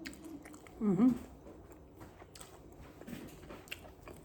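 A person's voice: a short wordless vocal sound about a second in and a fainter one near three seconds, with scattered soft clicks.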